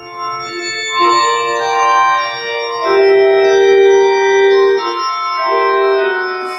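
Organ playing slow, sustained chords, each held a second or two before moving to the next.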